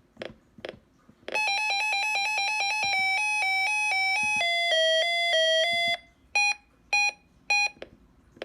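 Reecom R-1630 weather radio's siren test: two short beeps, then an electronic alert tone that pulses rapidly and steps down in pitch for about five seconds, ending with three short beeps.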